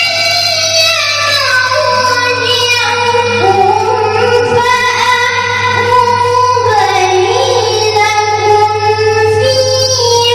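A female Quran reciter's (qoriah's) high, shrill voice in melodic recitation, holding long ornamented notes that step down in pitch and then climb again near the end. A steady low hum runs underneath.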